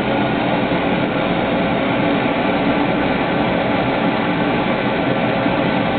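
Home-made, water-cooled Ross yoke hot air (Stirling) engine running with its gas burner turned up, making a steady, even mechanical running noise.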